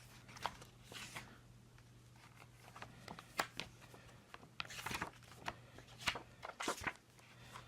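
Faint paper rustling and light taps as the pages of a printed book are leafed through and handled, over a steady low hum.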